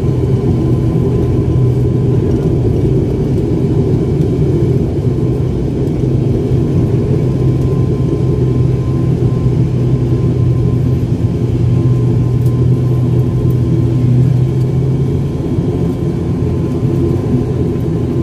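ATR turboprop's engines and propellers heard from inside the cabin while the plane taxis: a loud, steady drone with a low hum and a faint high whine.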